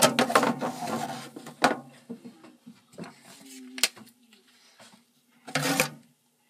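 A plastic small-engine cover being scrubbed and handled in a solvent-tank parts washer with foaming engine degreaser. Rubbing for about a second and a half, then a few knocks and a short clatter as the part is set down and moved against the tank.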